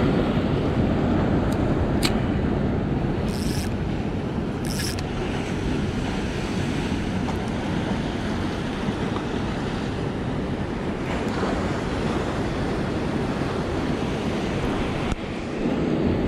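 Wind buffeting the microphone over waves washing against the breakwall rocks, a steady rumbling hiss. A few brief high hisses sound between about two and five seconds in.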